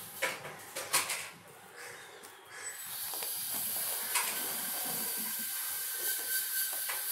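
Soft taps and rustling as cutout fingers are folded down on a laminated activity board, the sharpest taps in the first second or so, then a steady hiss from about three seconds in.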